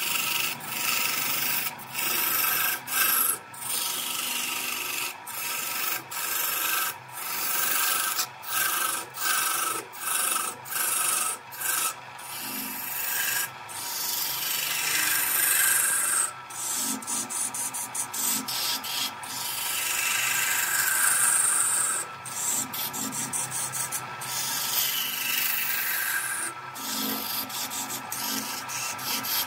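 A turning tool cutting a spinning wooden spindle on a lathe: a rough, hissing scrape as shavings fly off. It comes in many separate cuts with short breaks between them, quick ones in the first half and longer runs later.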